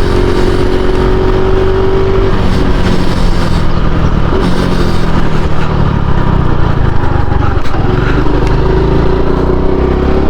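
Honda Pop 110i's single-cylinder engine running while riding, with road and wind noise; the engine note drops about two seconds in. The bike has a nagging front-end noise that the rider suspects comes from bent wheel rims or the side bars he fitted.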